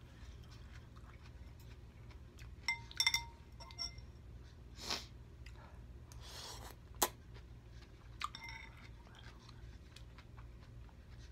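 A metal fork clinks against a glass bowl with a short ringing note about three seconds in and again about eight and a half seconds in. Between them come slurping and chewing of pho noodles, with a few sharp mouth and utensil clicks.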